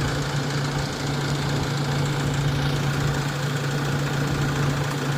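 Diesel engine of heavy earthmoving machinery running steadily with a constant low hum, neither revving up nor down.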